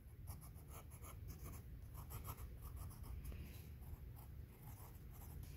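Pencil scratching on sketchbook paper in a quick run of short, faint strokes, drawing small wheels.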